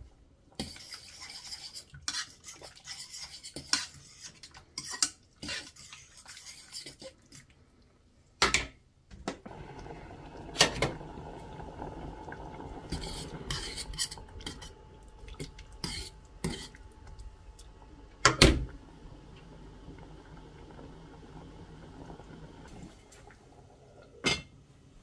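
Pots, dishes and cutlery clattering and scraping in a kitchen, with a run of quick clinks in the first seven seconds and single loud clanks at about eight, eleven, eighteen and twenty-four seconds in. A steady low hum sits underneath from about nine seconds on.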